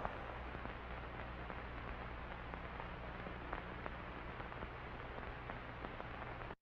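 Faint crackling static over a low steady hum, with scattered small clicks; it cuts off suddenly to silence at the very end.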